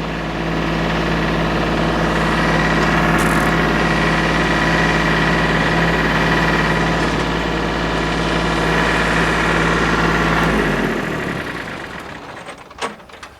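Tractor engine running steadily, then shut off about ten and a half seconds in and dying away, with a few light clicks afterwards.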